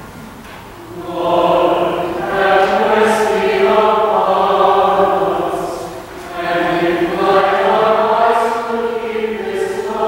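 A choir singing the sung response to a commandment of the Decalogue in plain chant, in two phrases with a short break about six seconds in, in a resonant church.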